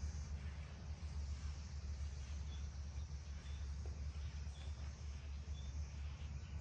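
Short high chirps about once a second, typical of a small bird, over a steady low rumble.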